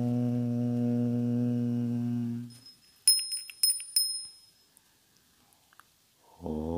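A deep chanted 'Om' held steady for a couple of seconds and ending, followed by several quick strikes of a small high-pitched bell about three seconds in. The chant starts again near the end.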